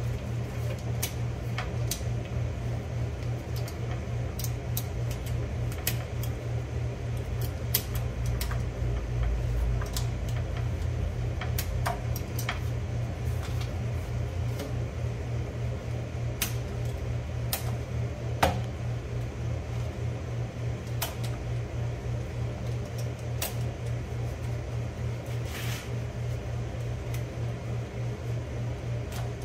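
Steady hum of a running fan with scattered light clicks and taps from hand work on the transmission and its straps under the truck.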